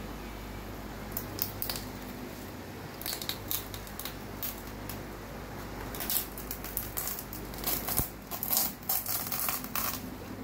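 Plastic bin liner and plastic packaging crinkling and rustling as a hand rummages through a small waste bin: irregular sharp crackles, thickest in the second half.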